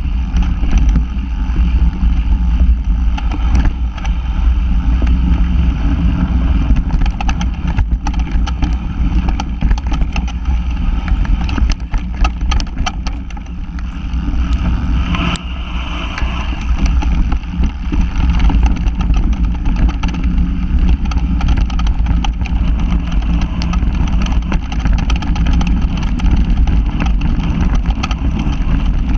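Mountain bike riding over rough singletrack: a steady heavy rumble of wind and tyre noise on the bike-mounted camera's microphone, with frequent rattles and knocks from the bike over the bumpy ground.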